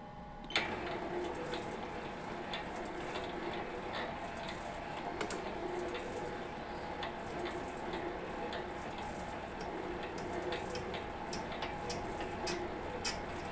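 Metal lathe starting up about half a second in and running at slow speed, turning the rim of a hot-rolled steel flywheel blank with a light fine-feed cut. There is a steady motor and gear hum with scattered light ticks.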